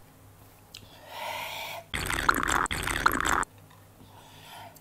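A person blowing breath out hard: a short hiss about a second in, then a louder rush of breath over the microphone for about a second and a half, as a mouth burns from very spicy instant noodles.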